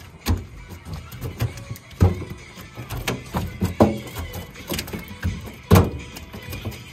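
Irregular knocks and clicks from fishing gear and the hull of an aluminum skiff as a spinning rod is jerked and worked. A few sharper thuds stand out, one about two seconds in and the loudest near the end.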